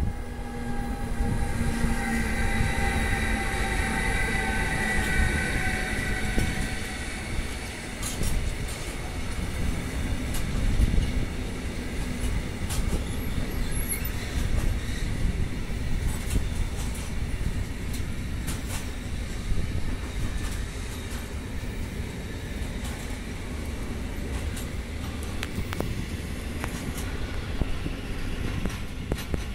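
Electric freight locomotive passing slowly with a whine of several tones that fades after about seven seconds. It is followed by the steady low rumble of intermodal wagons carrying road trailers rolling by, with scattered wheel clicks.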